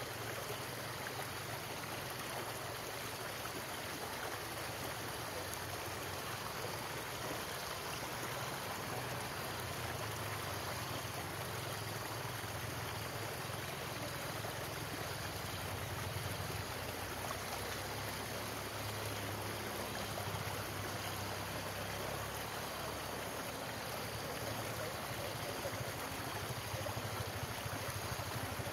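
Shallow stream water running steadily over rocks as it spills out of a concrete culvert.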